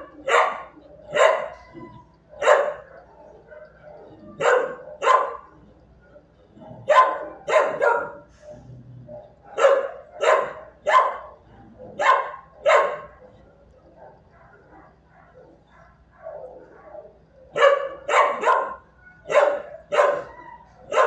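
Shelter dog barking repeatedly in a kennel, in runs of two to five sharp barks separated by short pauses, with a quieter spell of a few seconds before a final run of barks near the end.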